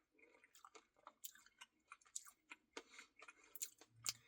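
Faint, close-up chewing and wet mouth clicks from a person eating a Reese's cookie dough Blizzard ice cream, a scatter of small smacks several times a second.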